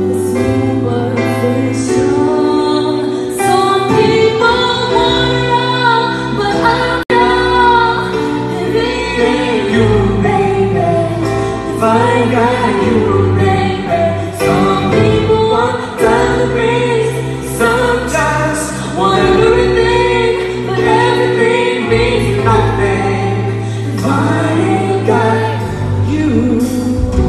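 A woman sings live into a microphone over grand piano accompaniment, amplified through a concert sound system. The sound cuts out for an instant about seven seconds in.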